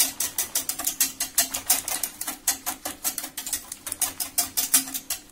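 A whisk beating a hot milk and egg-yolk mixture, clicking rapidly and evenly against the sides of the container, about six strokes a second, stopping at the end.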